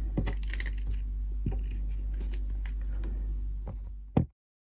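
Scattered light taps, clicks and paper sounds of a book, pages and pens being handled on a desk, over a steady low hum. A sharper knock comes about four seconds in, then the sound cuts to silence.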